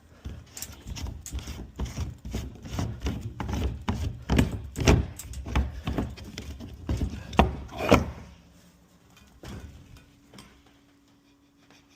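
Irregular plastic knocks, clatter and scraping as the screw lid of an IBC water tote is worked open by hand. After about eight seconds the handling stops, leaving a faint steady hum.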